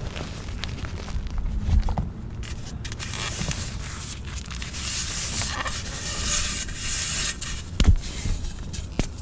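Hands squeezing and crumbling powdery gym chalk mixed with baby powder and cornstarch: soft crunching and a hissing crumble of powder that grows stronger midway. Near the end a reformed gym chalk block breaks with a dull thump, the loudest sound.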